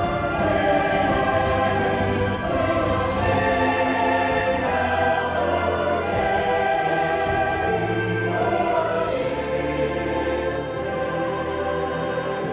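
Choral music: a choir singing with orchestral accompaniment.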